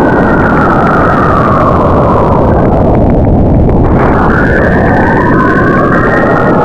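Saturn's radio emissions picked up by a spacecraft and converted into audio. They sound like a loud, dense rushing noise carrying whistling tones that glide slowly downward, then rise again from about four seconds in.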